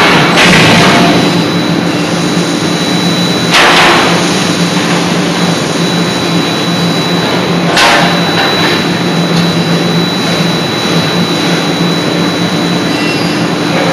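C92K-80 CNC hydraulic die forging hammer working: a loud, steady machine noise with a low hum, broken by three heavy blows about four seconds apart.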